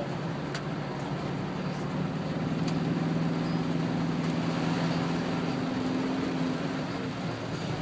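A car engine's steady low drone, heard from inside the cabin, over a constant hiss of heavy rain and tyres churning through floodwater on the road.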